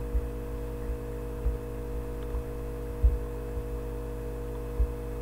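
Steady electrical mains hum made of several held tones, with a few short low thumps now and then.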